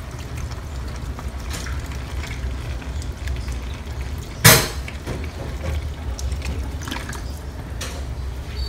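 Chicken broth pouring from a carton into a pan of chili, a steady liquid pour over a low hum. A single sharp knock sounds about halfway through.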